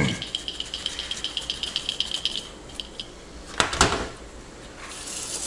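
Hard plastic and metal parts clattering and ticking in an open computer case for about two seconds, then two sharp knocks. Near the end a steady hiss of air starts, blowing dust out of the RAM slot.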